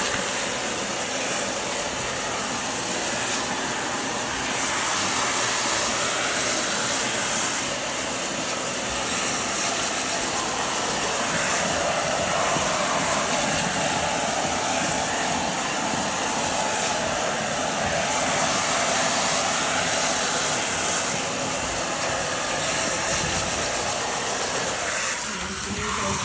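Hand-held hair dryer blowing, a steady rushing hiss whose tone shifts slightly now and then.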